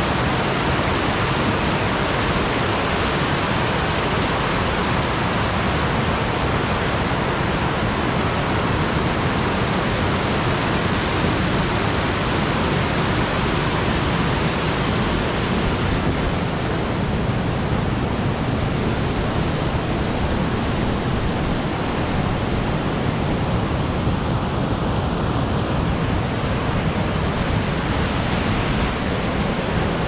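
Rushing water of a waterfall-fed stream running high: a loud, steady, unbroken rush.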